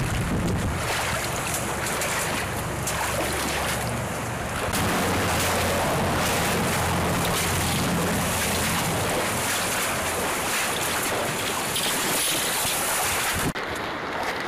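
Steady rushing wind noise on the microphone, with a low hum beneath it through the middle stretch. The sound shifts abruptly about four and a half seconds in and again near the end.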